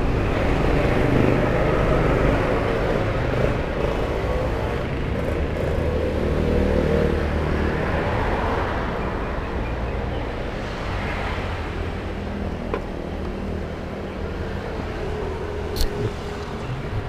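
Road traffic on a busy road: a heavy truck's low rumble at first, fading into steady passing traffic noise. A single sharp click comes near the end.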